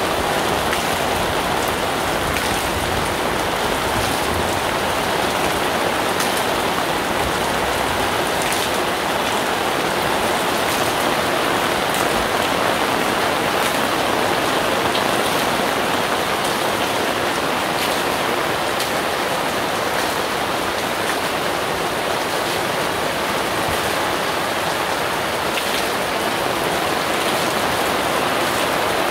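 Heavy downpour beating on a fabric pop-up canopy and splashing on the wet street: a steady, dense hiss with scattered sharper drop hits.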